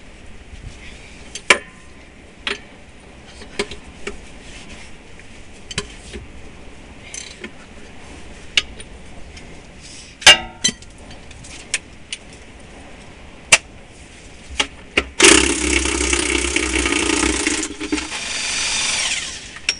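Metal clinks and knocks of tools on the wheel's nuts and rim, then a power impact wrench runs loudly for about four and a half seconds, loosening the fasteners that hold the tractor's dual wheel, and cuts off suddenly.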